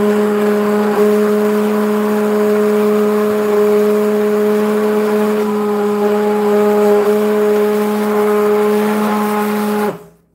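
Hand-held immersion blender running steadily at one speed with an even motor hum, churning butternut squash porridge in a stainless steel pot. It is switched off abruptly near the end.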